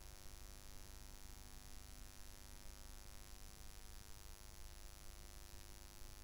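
Faint, steady electrical mains hum with a light hiss and no other sound.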